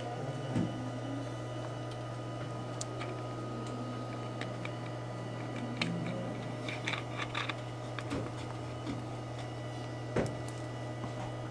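Indoor room tone: a steady low hum with a few faint steady whining tones, and scattered soft clicks and taps, with a small cluster of them about seven seconds in.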